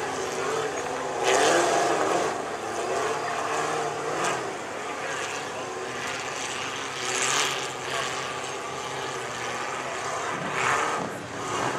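Off-road rock-racing buggy's engine running under load as it climbs over boulders, a steady drone broken by several louder revs, the loudest about a second in.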